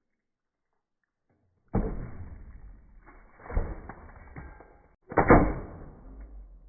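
.177 air rifle shots and pellet impacts: a sudden bang about two seconds in that trails off, a softer hit about a second and a half later, and a second, louder bang near the end that also trails off.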